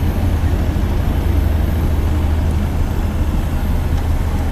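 Motorcycle engine running steadily at low revs as the bike rolls slowly, a constant low drone with no revving.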